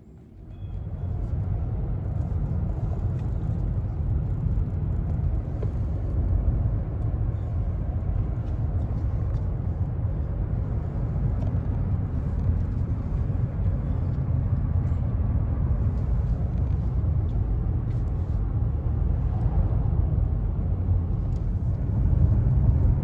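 Car driving on an unpaved gravel road: a steady low rumble of tyres and engine with scattered small ticks from the gravel.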